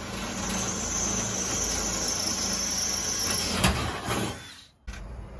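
Cordless drill boring a rivet hole through aluminum angle, the motor and bit running steadily at speed. It fades out and stops near the end.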